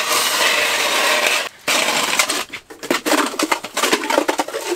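Hand-cranked ice auger drilling into pond ice: its blades shave and grind through the ice with a loud, continuous rasping crunch. It breaks off briefly about one and a half seconds in, then goes on in uneven strokes as the crank turns.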